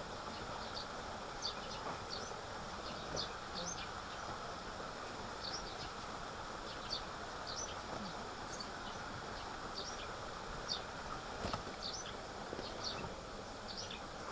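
Tropical forest ambience: a steady rushing hiss with short, high chirps from small animals scattered irregularly throughout. A single faint click comes about eleven and a half seconds in.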